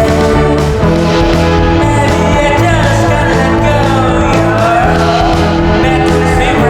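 Music: a song with a singing voice over sustained bass and chord notes from the band.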